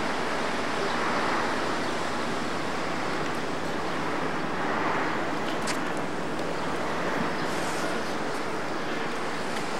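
Steady rushing noise of the city heard from a rooftop, even and unbroken, with a faint click about six seconds in.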